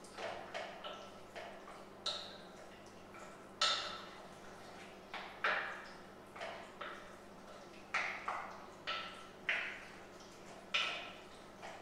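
Wooden spoon knocking and scraping against a glass mixing bowl while stirring pieces of meat: an irregular run of sharp clinks, each with a short ring.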